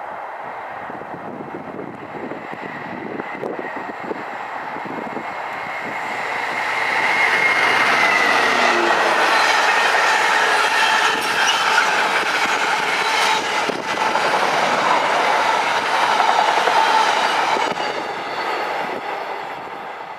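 A Freightliner Class 66 diesel locomotive, with its two-stroke V12 engine, passes at the head of an intermodal container train, followed by the container wagons rolling by on the rails. The sound builds as the locomotive comes close, stays loud while the wagons pass, and fades near the end.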